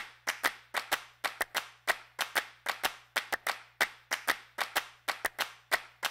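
Rhythmic hand claps, about four a second in a repeating pattern, each with a short ringing tail, over a faint steady low hum.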